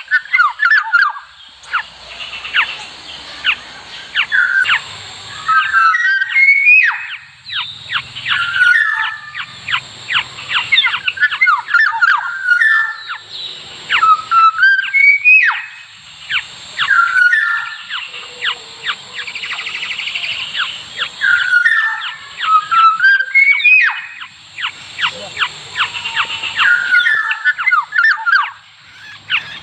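Black-naped orioles calling: short fluty whistled phrases that glide up and down, repeated every few seconds, with dense rapid clicking between them.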